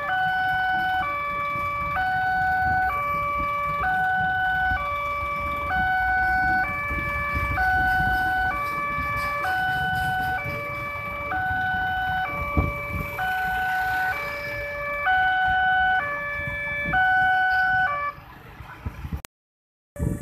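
Railway level-crossing alarm sounding an electronic two-tone warning that switches between a higher and a lower pitch about twice a second, over the low rumble of a passing passenger train. The alarm stops near the end.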